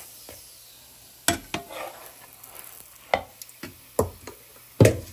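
A metal spatula tapping and scraping against a nonstick frying pan as a flatbread is turned in it, several sharp knocks with the loudest near the end, over faint sizzling from the frying bread.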